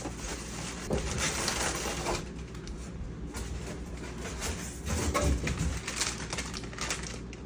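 Printer packaging being handled during unboxing: packing materials rustling in uneven stretches, with scattered light clicks and knocks.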